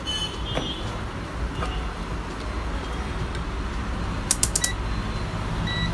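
Buttons on a handheld digital multimeter clicking as they are pressed, four quick clicks in under half a second a little past the middle, over a steady low hum.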